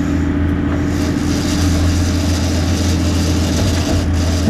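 Sport-fishing boat's engine running steadily with a low hum, with a broad hiss joining about a second in.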